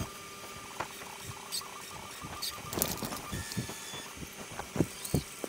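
Prusa i3 MK3 3D printer's stepper motors running with a faint steady whine as the print head moves for the first-layer calibration line, with scattered soft clicks and knocks.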